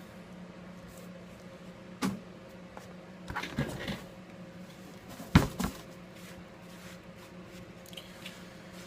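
A few short knocks and clicks of tools and small parts being handled and set down on a hard work surface. The loudest is a sharp double knock about halfway through. A steady low hum runs underneath.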